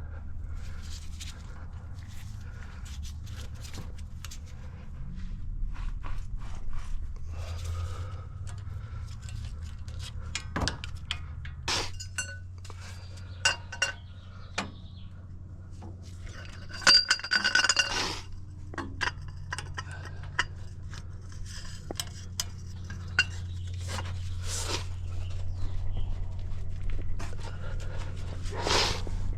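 Metal hand tools clinking and knocking against each other and the brake parts while the front brake caliper bolts are worked loose, with a short ringing metallic clatter about halfway through, over a steady low hum.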